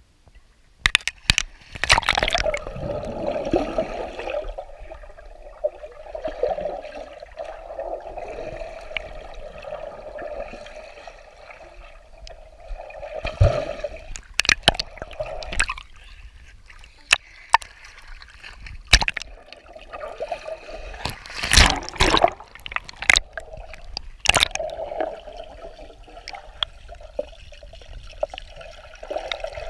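Swimming-pool water stirred by a swimmer, heard mostly from underwater: steady gurgling and sloshing with bubbles, broken by a dozen or so sudden splashes and knocks.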